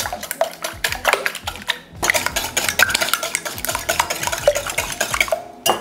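Wire whisk beating eggs in a glass measuring jug: a fast, steady run of clinks as the wires strike the glass, with a short pause about two seconds in.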